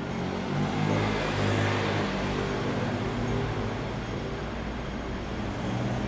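City street traffic: a motor vehicle passes close by, swelling about a second in, over a steady low engine hum.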